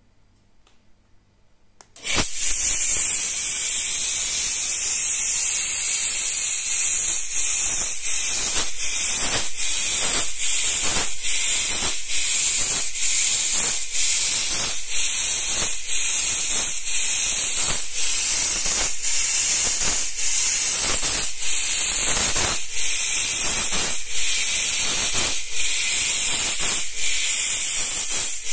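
A 1200 W fog machine jetting fog: a loud, steady hiss that starts suddenly about two seconds in. A regular pulse runs beneath it, about twice a second.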